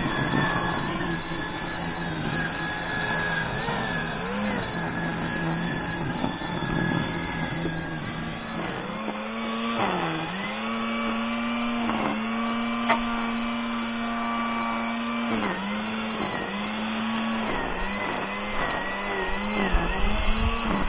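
Petrol grass trimmer running as it mows grass, its engine whine dipping briefly in pitch several times in the second half as it bites into the grass.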